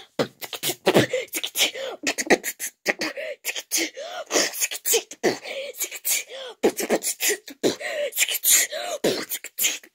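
Someone beatboxing: a fast, uneven run of mouth pops, clicks and hissed snare sounds, broken up by short hummed vocal notes.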